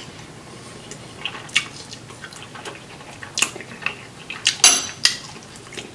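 A metal fork clicking against ceramic serving dishes: a handful of sharp clicks, the loudest a little past the middle, over quiet wet eating sounds.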